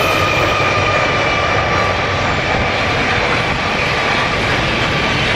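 Three NR class GE diesel-electric locomotives passing close by under power, a steady loud running noise with a high whine that fades about two to three seconds in as the locomotives go by, then the rolling of intermodal container wagons.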